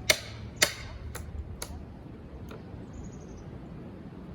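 Hammer blows knocking planks loose from a wooden pallet: two sharp, loud strikes in the first second, then three lighter knocks over the next two seconds.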